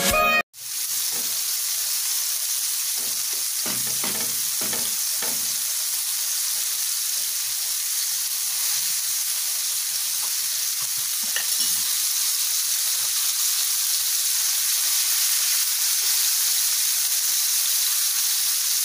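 Flour-dusted pollock pieces sizzling steadily as they fry in oil in a frying pan, with sliced onion frying in a second pan. A few soft knocks come through about three to five seconds in.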